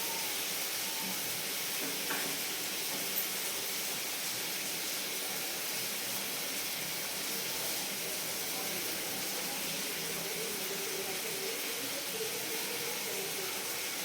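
Fish frying in hot oil: a steady sizzling hiss that does not change.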